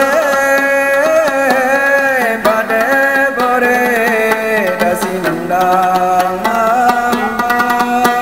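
A man singing with long held notes that slide and waver, accompanied by rapid plucking on a gambus, the many-stringed Sasak lute.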